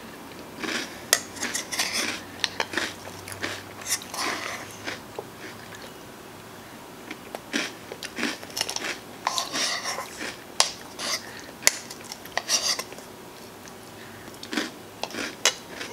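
A metal spoon clinking and scraping in a plastic bowl of ice cream, with the lip smacking and chewing of someone eating it, in irregular clicks and short scrapes.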